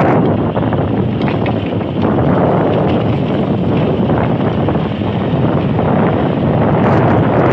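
Steady wind rushing over the microphone of a moving vehicle, with the vehicle's running noise underneath.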